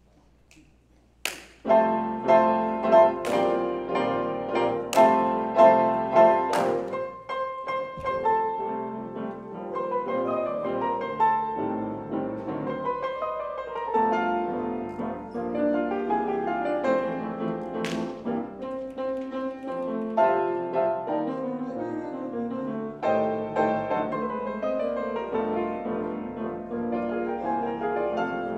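Ensemble of several pianos playing together. It begins about a second in with loud accented chords struck every couple of seconds, then carries on with continuous playing.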